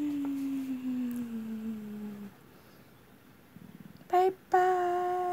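A woman humming one long note that slowly slides down in pitch, then, after a pause of about two seconds, a short sung note and a steady held higher note near the end.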